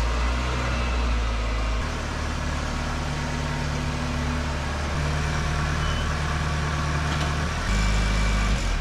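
Toyota Camry's 5S-FE four-cylinder engine running at low speed as the car creeps forward, its note changing a few times.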